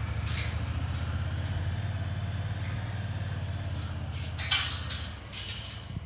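Side-by-side utility vehicle's engine idling with a steady low hum, with a few short knocks about four and a half seconds in.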